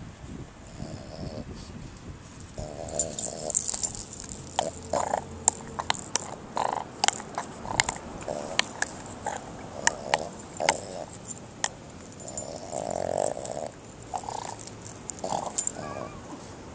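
Boston Terrier chewing and snuffling at something in the grass close by: irregular sharp crunching clicks with short low rasping sounds in between.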